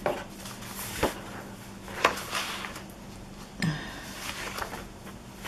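Sheets of old paper in a folder being turned and handled: a few short, sharp rustles about a second apart.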